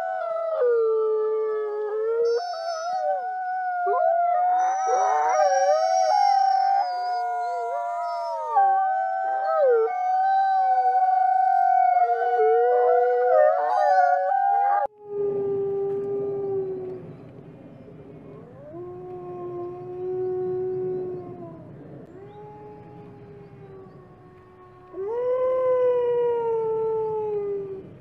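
Grey wolves howling: a pack chorus of several overlapping, gliding howls for about fifteen seconds, then an abrupt cut to a single wolf giving about four long, lower howls one after another over a faint steady hiss.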